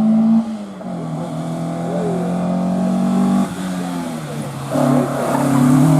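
Historic rally car engine revving hard under acceleration, its pitch dropping briefly at gear changes or lifts about half a second in and again after three and a half seconds, then rising and getting louder near the end.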